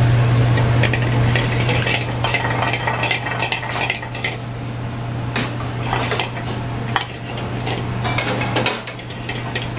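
Steel sauté pans clanking and scraping against each other and the range grates: many scattered metallic clinks with short ringing, over a steady low hum.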